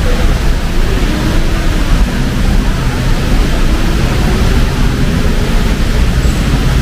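Heavy rain pouring down, a loud steady hiss, with street traffic running underneath it.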